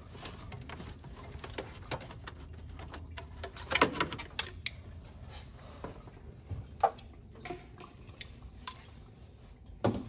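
Scattered light clicks, taps and clinks of hand tools and hose, clamp and plastic parts being handled in a car's engine bay, with a louder clatter about four seconds in.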